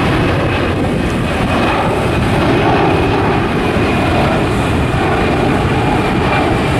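Large military jet transport plane flying overhead, a loud steady jet-engine rumble with a thin steady whine above it.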